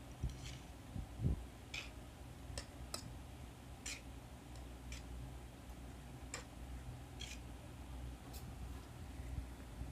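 Fork and spoon clicking and scraping against a plate as noodles are tossed and twirled: light, irregular clicks about once or twice a second, with a dull thump just over a second in, over a low steady hum.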